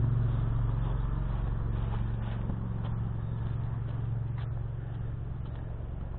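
Lawn mower engine running steadily, slowly growing fainter.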